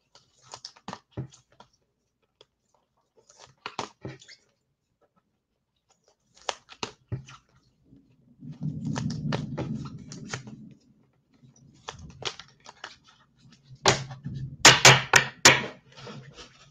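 Trading cards and their plastic sleeves being handled and set down on a table: scattered small clicks and taps, a low rubbing rustle about halfway through, and a cluster of louder clicks near the end.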